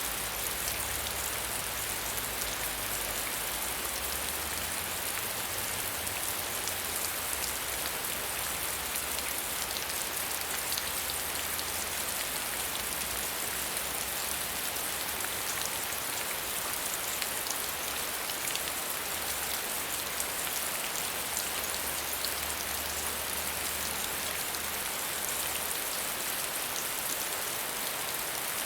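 Steady medium rainfall, a dense even patter of drops striking a surface.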